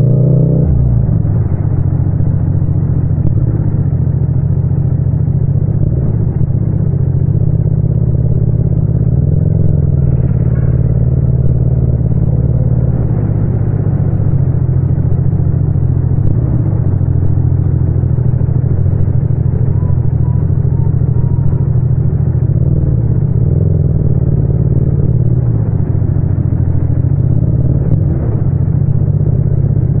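Yamaha MT-07's 689 cc parallel-twin engine running steadily at low revs in second gear at crawling speed, its pitch rising and dipping gently a few times with light throttle.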